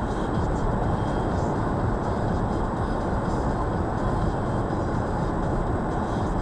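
Car driving at highway speed: a steady rumble of road and tyre noise, heard inside the cabin.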